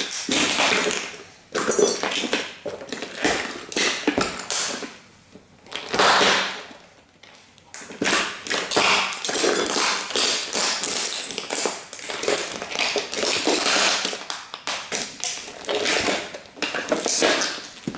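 Heavy-soled Dr. Martens Jadon boots stomping and grinding on the broken pieces of a model car, crunching, scraping and clattering plastic and metal fragments, in bursts with brief pauses.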